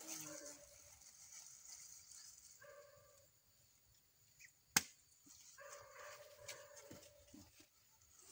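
Macaques giving three short, level-pitched calls, at the start, about three seconds in and again near six seconds, with one sharp snap near the middle that is the loudest sound, over a steady high hiss.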